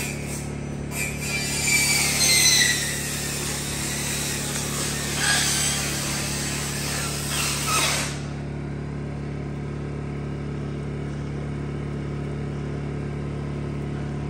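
Power tool motor running with a steady low hum, with a harsh, hissing cutting noise over it for about the first eight seconds that stops abruptly, leaving an even motor drone.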